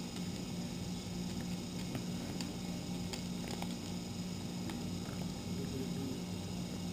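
A domestic cat eating dry kibble from a feeder bowl, with faint scattered crunches over a steady low hum.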